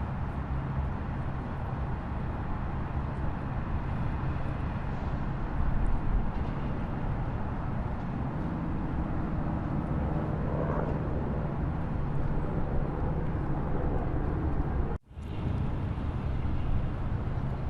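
Waterfall rushing in a steady, dense roar with a heavy low rumble, broken by a sudden drop-out for a fraction of a second about fifteen seconds in.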